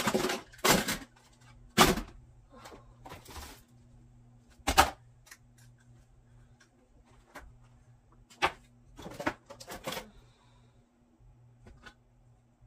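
Toys and household clutter knocking and clattering as they are picked up off the floor and dropped into a clear plastic storage bin, with rustling in between. The knocks come at irregular intervals, with the sharpest right at the start, about two seconds in and near the five-second mark, and a cluster of smaller ones near the ten-second mark.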